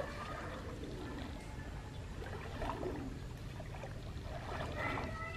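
Hands sloshing and dabbling in shallow muddy water at a pond edge: soft, irregular splashes and trickles over a low steady rumble. Music comes in near the end.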